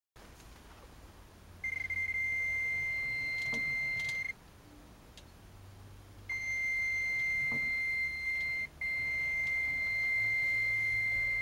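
Radio-controlled Tonka Cranemaster crane's electric motor driving the hoist and swing, giving a steady high-pitched whine over a low hum. It runs in three spells with short pauses between them, and there are a few faint knocks from the mechanism.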